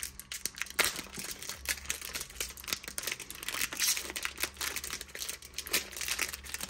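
Plastic packaging of a printhead crinkling and tearing as it is opened by hand: a continuous run of irregular crackles, with a few sharper ones scattered through.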